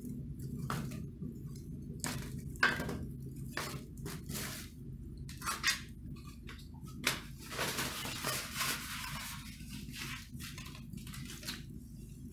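Crumpled paper burning in a fireplace grate, crackling and popping irregularly, with a busier run of crackling a little past the middle. A steady low hum runs underneath.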